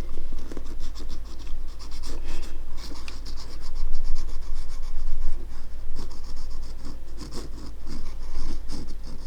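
Hands scratching and rubbing against a shoe while gluing and pressing it during a super-glue repair: a busy run of short, rapid scratches, loudest a couple of seconds in.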